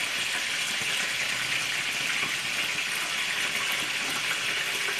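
Pot of sausages and vegetables cooking in sauce on the stove: a steady hiss with faint scattered crackles of bubbling.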